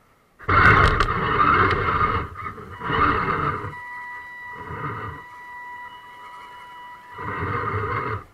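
Electric motor and gear drivetrain of a radio-controlled scale crawler whining in bursts as the throttle is worked, three louder surges with a quieter steady motor whine between them in the middle.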